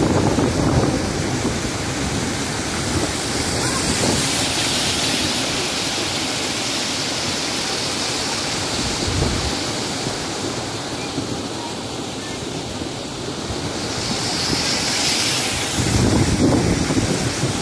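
River water rushing over a low concrete weir: a steady rushing noise. Wind buffets the microphone, heaviest near the start and again near the end.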